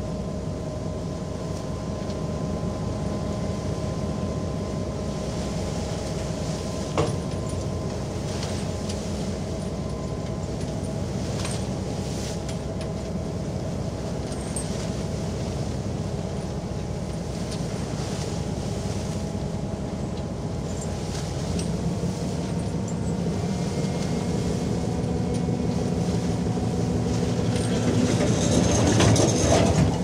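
Trawl winch machinery lowering fishing gear: a steady mechanical rumble with a fine rapid pulse and a faint whine over it. There is a sharp clank about seven seconds in, a few light ticks after it, and the rumble grows louder near the end.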